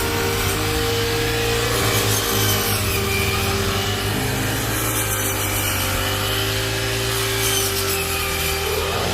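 Rice combine harvester running steadily: constant machine noise with a steady hum underneath.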